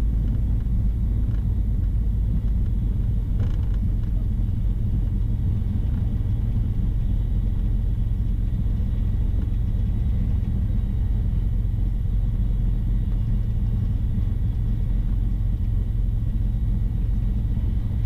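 The twin piston engines of a Cessna 310 running at low taxi power, heard inside the cabin as a steady low rumble.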